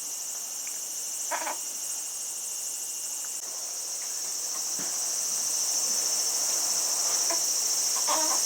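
A steady high-pitched hiss with a fine buzzing texture, growing slightly louder. Two faint short rustling sounds come about a second and a half in and near the end.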